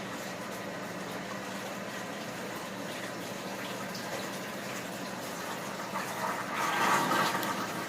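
Wet squishing of slime being kneaded and mixed by hand as pink paint is worked in, louder and busier about seven seconds in.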